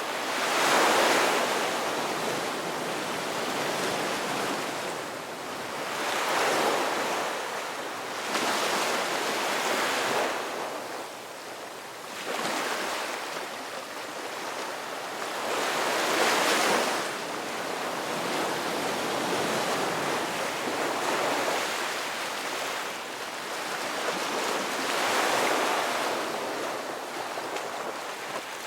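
Ocean surf, waves breaking and washing in as a hiss that swells and eases in surges every few seconds.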